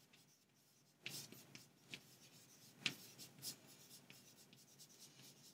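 Chalk writing on a chalkboard: faint scratching strokes starting about a second in, with one sharper tap of the chalk near the middle.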